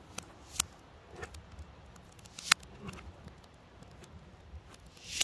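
Quiet room tone with a few short, sharp clicks, the two loudest about half a second and two and a half seconds in, and some softer ticks between.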